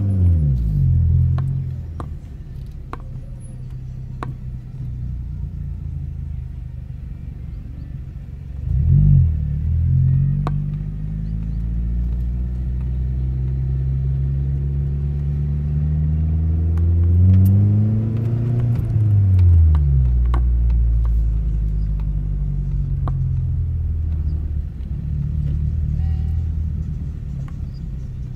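Car engine heard from inside the cabin, pulling at low speed. Its revs blip briefly about nine seconds in, then climb slowly for several seconds and fall away about eighteen to twenty seconds in, settling to a steady run, with a few light clicks scattered through.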